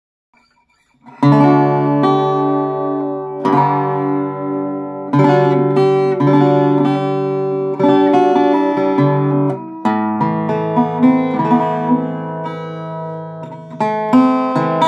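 Rosewood six-string acoustic guitar being played: ringing chords plucked and strummed, starting about a second in, with a new chord struck every second or two and each left to ring and fade.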